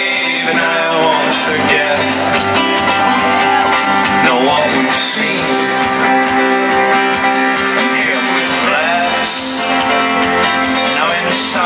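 Live folk-rock band playing at full volume: driving strummed acoustic guitar and plucked strings over a steady beat, recorded from the audience.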